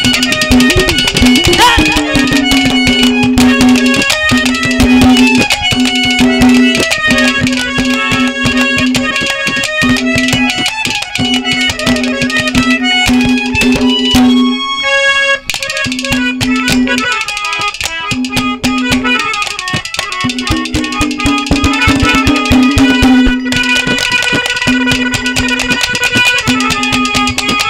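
Instrumental interlude of Haryanvi ragni folk music: a held reed melody, harmonium-like, over fast, dense drumming, with a short break in the music about halfway through.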